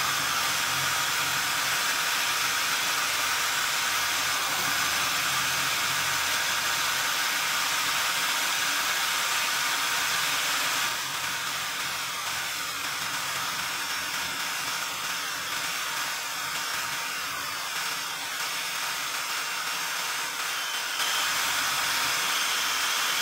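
Electric drill running steadily, spinning a welding electrode in its chuck while a stainless steel knife edge is drawn along the rod's flux coating, which wears away as powder. The sound dips slightly through the middle part and comes back up near the end.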